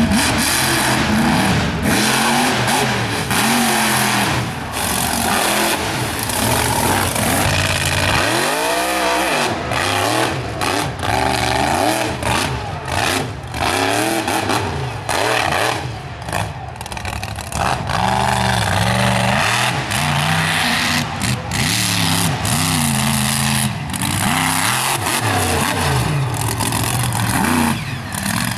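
Mega truck engines revving hard, their pitch rising and falling again and again as the big-tyred trucks power up steep dirt hills and throw mud.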